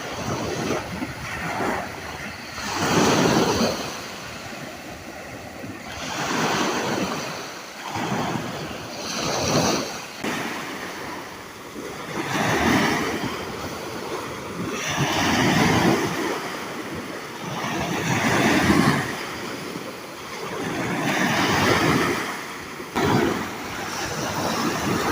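Sea waves breaking and washing in, swelling and fading about every three seconds.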